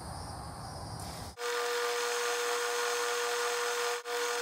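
Metal lathe running and turning down a metal bolt blank with a cutting tool: a steady whine with a high hiss. It starts suddenly a little over a second in, after quieter room noise, and has a brief dropout near the end.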